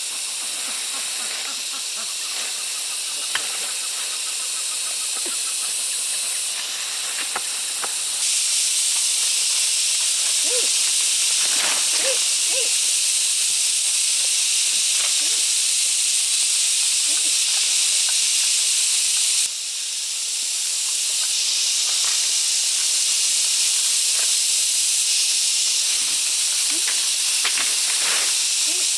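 A steady high hiss with scattered faint clicks and knocks. It gets abruptly louder about eight seconds in, drops suddenly near twenty seconds, then builds back up.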